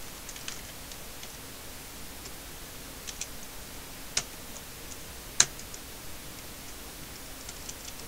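Computer keyboard keys clicking, a few scattered keystrokes rather than fast typing, with two sharper key strikes about four and five and a half seconds in.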